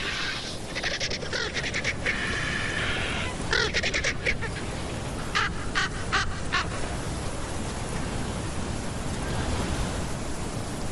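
Cinereous (Eurasian black) vultures giving a run of short, harsh calls over a steady wind, defending their territory and food. The calls stop about seven seconds in and only the wind goes on.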